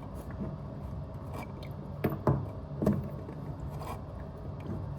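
A tool gripping and scraping on a tight compression ferrule on a water pipe as it is worked loose: a few short metallic scrapes and clicks, over a steady low hum.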